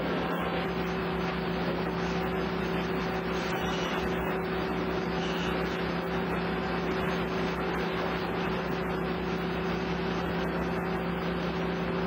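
Industrial sawmill machinery, the log carriage and band saw, running: a steady mechanical din with a constant low hum that holds unchanged.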